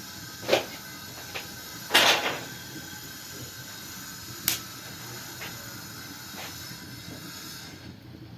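A handful of sharp, irregular knocks and clacks of hard objects, the loudest about two seconds in, over a steady low hum.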